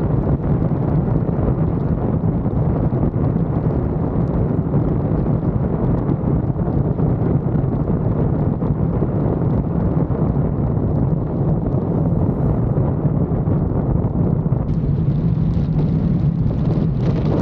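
Wind buffeting the microphone of a camera mounted outside a moving vehicle, over a steady low rumble of tyres and engine on the road. The noise holds steady, with a little more hiss in the last couple of seconds.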